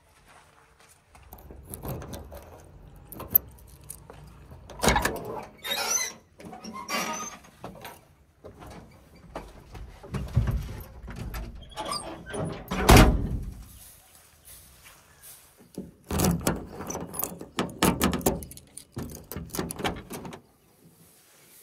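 JCB 3DX backhoe loader at work: irregular metal clanks and thunks with brief squeals, over a low engine rumble.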